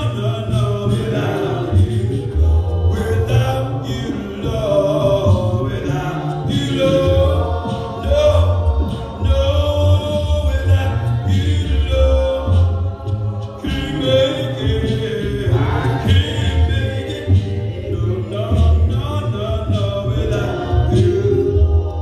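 Voices singing a slow hymn a cappella, unaccompanied by instruments.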